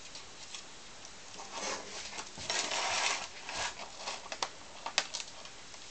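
Plastic scraping as a pry tool is worked along the seam of a laptop's plastic case, followed by a few sharp clicks near the end.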